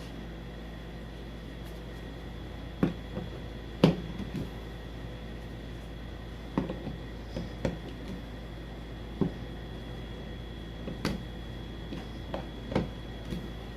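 Handling of the drone battery charger and its parts: scattered short knocks and clicks, about seven in all, the loudest about four seconds in, over a steady background hum.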